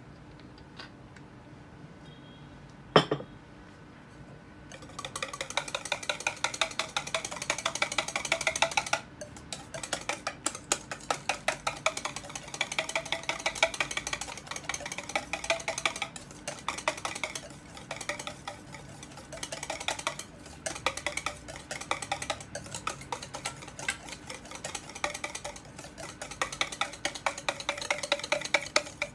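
Wire whisk beating a thick mayonnaise-based sauce in a stainless-steel bowl: fast, continuous clicking of the wires against the steel, with short pauses. A single sharp knock comes about three seconds in, before the whisking starts about five seconds in.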